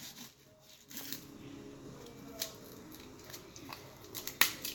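A few scattered sharp clicks and taps of a kitchen knife and an onion being handled on a cutting board, the loudest near the end.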